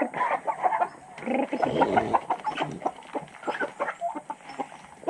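A flock of domestic chickens clucking and squawking in many short calls, hungry at feeding time.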